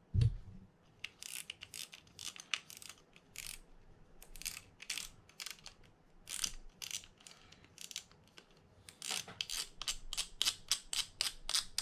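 Fin-Nor Offshore 7500 spinning reel clicking like a ratchet as its front drag knob is turned to free the spool. The clicks come irregularly at first and quicken into a fast run near the end, after a single knock at the very start.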